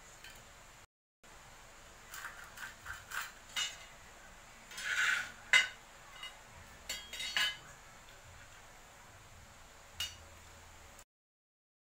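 Scattered light metallic clinks and taps, with a short scrape near the middle, as a flat metal rule is handled and set against a wooden plank on a concrete floor. The sound cuts to silence briefly about a second in and again near the end.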